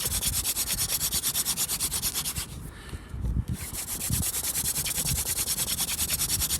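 Hand drill fire-lighting: an elder spindle is spun back and forth between the palms in the notch of a clematis hearth board, a rapid rhythmic rubbing of wood grinding on wood that builds heat for an ember. It breaks off for about a second near the middle, then resumes.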